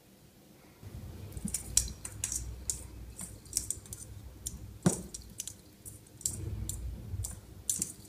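Irregular light clicks and taps as a cat paws at a hanging Christmas-tree bauble, knocking it against the branches, starting about a second in. A low rumble sits underneath.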